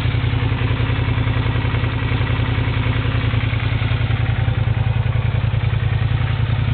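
A 2008 Suzuki SV650S's V-twin engine idling steadily with an even, fast pulse.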